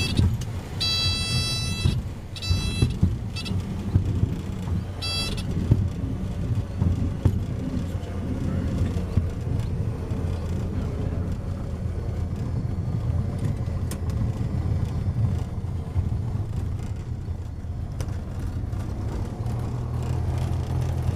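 Cabin noise of a single-engine light aircraft rolling out on a grass runway: the engine drones low at idle while the wheels rumble and bump over the grass. In the first five seconds a cockpit warning tone beeps in four short bursts, and near the end the engine note grows a little stronger.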